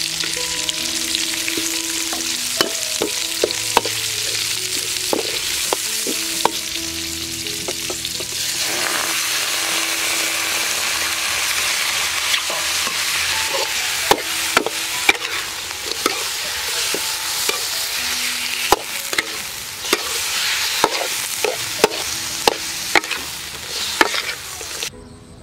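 Snake meat and aromatics stir-frying in hot oil in a metal wok: a steady sizzle that grows louder about a third of the way in. A metal ladle scrapes and knocks against the wok, with sharp clacks coming more often in the second half.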